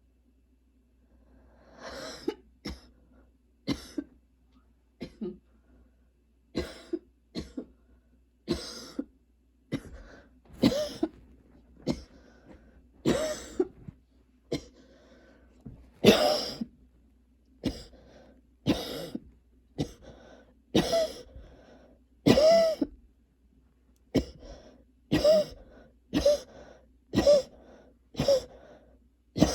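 A girl's coughing fit: a long run of short coughs, about one a second, starting about a second in. It is a persistent cough that her current medication is not controlling.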